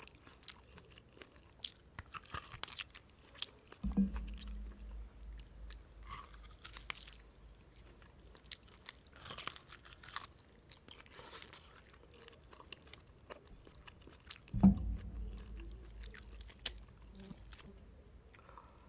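Close-up eating sounds: chewing and biting with small wet mouth clicks and smacks while eating beef noodle soup. A dull low thud with a brief low hum comes about four seconds in and again about fifteen seconds in.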